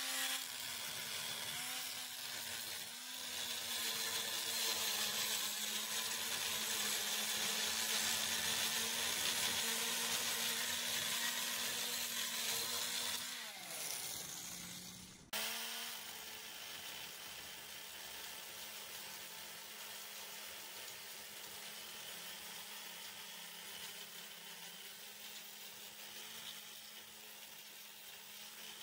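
Angle grinder with an abrasive grinding disc running at a steady speed while grinding rust off an iron railing, with a steady motor whine under a loud grinding hiss. About halfway through the sound dips and falls in pitch, then breaks off abruptly. The grinder then carries on more quietly, with lighter grinding.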